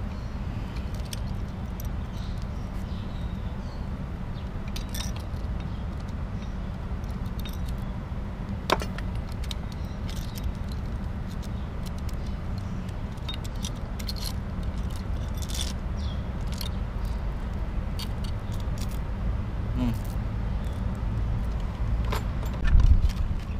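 Scattered light metallic clinks and chain rattle as the cam chain is worked off the crankshaft of a dismantled Honda EX5 crankcase, over a steady low rumble, with a louder thump near the end.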